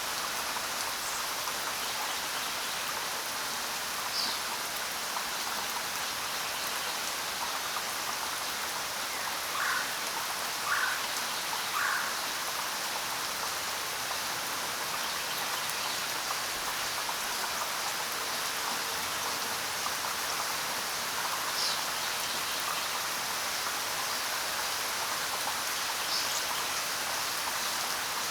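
Steady rain falling, an even hiss without thunder. A few short, faint sounds rise above it, three close together about ten seconds in.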